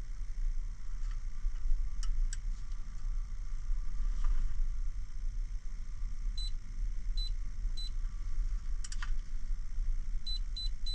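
Electronic torque wrench beeping as the oil drain plug is tightened toward 29 foot-pounds: three short beeps, a pause, then three more near the end. A few tool clicks and a steady muffled rumble of the camera in its protective case run underneath.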